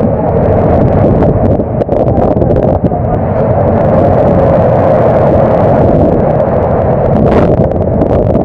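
Loud, steady storm noise on the open deck of a longline fishing vessel: wind, rain and breaking sea over the constant drone of the boat's machinery, with scattered sharp hits and a brief hiss about seven seconds in.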